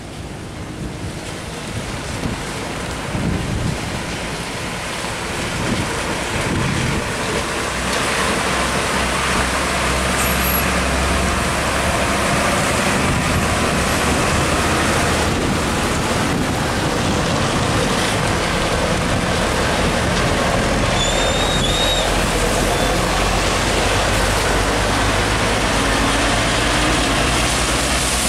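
Heavy diesel trucks, one towing a trailer, driving past on a rain-soaked road: a low engine drone under a steady hiss of rain and tyre spray, growing louder over the first ten seconds or so.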